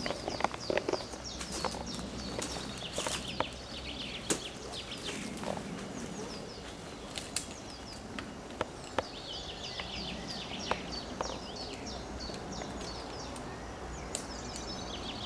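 Birds chirping and singing in short falling phrases, over a steady outdoor background, with scattered sharp clicks and knocks in the first half.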